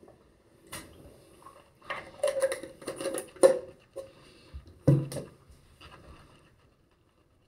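Clicks and knocks of a plastic mouthwash bottle and its cap being handled while a mouthful of mouthwash is swished, with a sharper knock about five seconds in as the bottle is set down on the counter.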